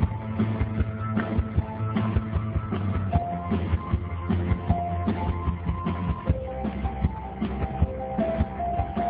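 Live synth-pop band playing: a keyboard synthesizer melody of held notes over a steady drum beat and bass.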